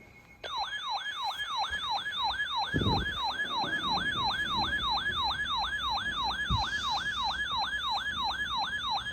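Electronic siren tone in a fast yelp, sweeping down and back up about three times a second. It starts about half a second in, and two low thumps sound beneath it.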